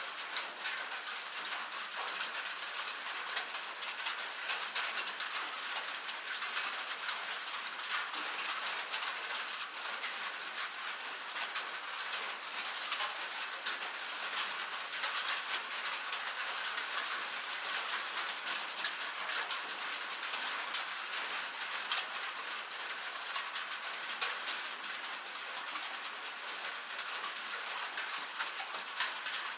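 Steady rain on a metal roof: a dense, even patter of drops ticking on the sheet metal over a constant hiss.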